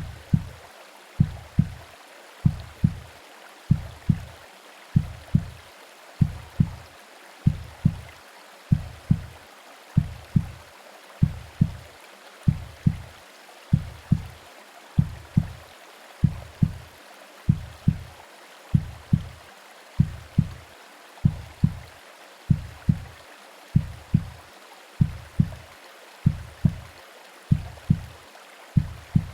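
A slow heartbeat as heard in the womb: paired low thumps (lub-dub) about every second and a half, over a steady hiss of white noise and rain.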